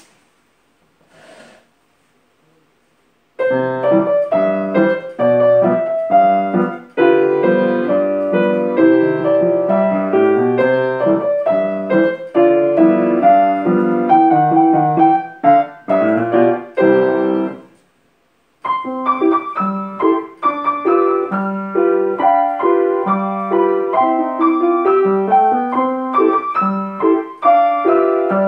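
Grand piano being played: a brisk piece in short phrases that starts a few seconds in, breaks off for about a second midway, then carries on.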